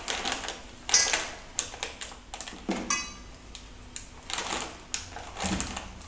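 A hand working wet spice paste into a raw whole chicken in a stainless steel bowl: irregular short squelches and clicks, with taps against the metal bowl.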